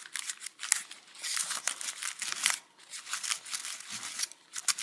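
A napkin scrubbing the contacts of a small foil-wrapped circuit board, with the aluminium foil crinkling under the hands, in quick irregular rubs with short pauses. The contacts are being wiped clean of leftover solder-paste residue with acetone.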